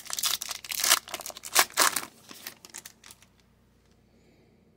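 Foil wrapper of an Upper Deck hockey card pack being torn open and crinkled: a dense run of crackles for about two seconds that then thins out and stops.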